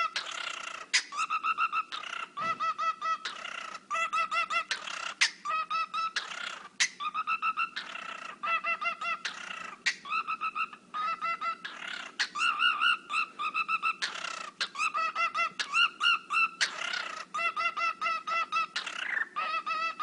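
A bird calling in rapid stuttering runs of quick repeated pitched notes, broken every second or two by short harsh rushes, a pattern likened to a dubstep wobble.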